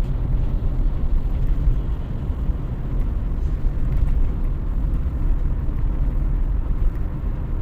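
Steady low rumble of a vehicle travelling on the road: engine and tyre noise with no sudden events.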